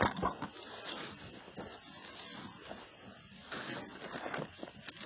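Footsteps of leather work boots walking through long grass, the grass swishing against the boots with each stride and a few sharper footfalls near the start and the end.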